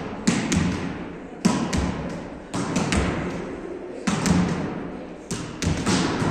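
A volleyball being struck with hands and forearms in passing, a string of sharp hits, one or two a second, each ringing on with a long echo of a large hall.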